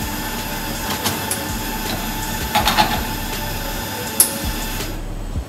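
Espresso machine running with a steady hiss while the portafilter is handled, with sharp metal clicks and a short run of clanks midway; the hiss cuts off suddenly near the end.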